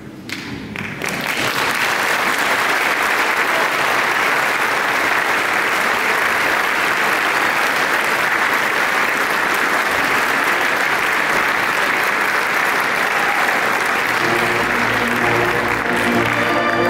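Audience and choir applauding, a dense, steady clapping that starts about a second in. Near the end, the orchestra's sustained notes begin to sound under the applause.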